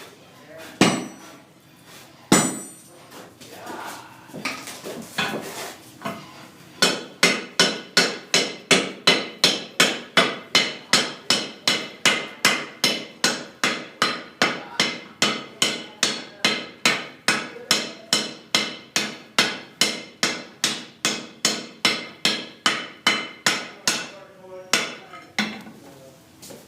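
Hand hammer striking a hot wrought-iron gun barrel during forge welding: a few separate blows, then from about seven seconds in a fast, steady run of sharp blows, about three a second, which stops a couple of seconds before the end.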